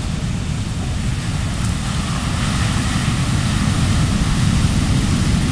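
Heavy surf from a hurricane's swell breaking on the beach, a continuous wash of crashing water that grows louder about two seconds in, with wind buffeting the microphone.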